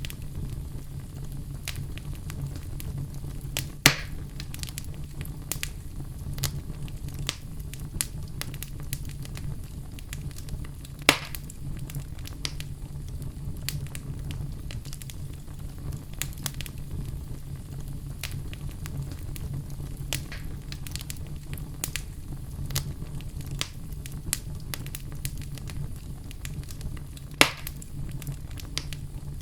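Wood fire burning in a fireplace, crackling: a steady low rumble of flame under frequent small snaps, with three louder pops spread through.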